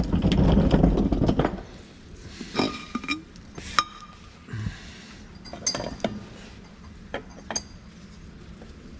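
Metal parts and tools clinking on a tractor's back-end oil filter pipework as a seal and pipe are refitted. There is a loud burst of noise in the first second and a half, then scattered sharp chinks that ring briefly.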